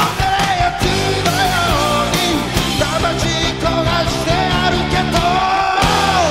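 Rock band playing live: distorted guitars, bass and drums, with a sustained lead melody line that is held and then bends downward near the end.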